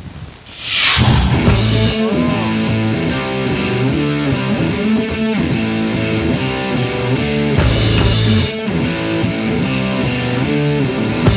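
Rock music with guitar and drums starts about a second in, led in by a whoosh sweep; a second whoosh comes near the end.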